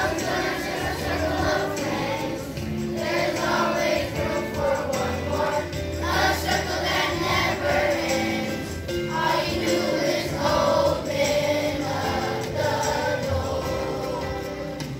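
Children's choir singing together over an instrumental accompaniment.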